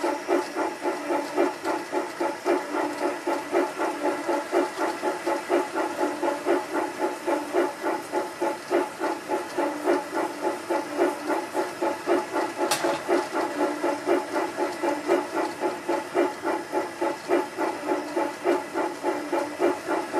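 G scale model steam locomotive running in place on roller stands, its onboard sound giving an even chuff at about two and a half beats a second over the steady hum of the drive. A single sharp click about two thirds of the way through.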